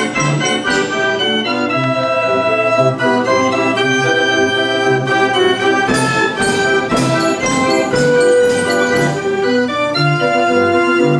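Band organ playing a lively tune: organ-pipe notes over a regular bass line, with drum and cymbal strokes.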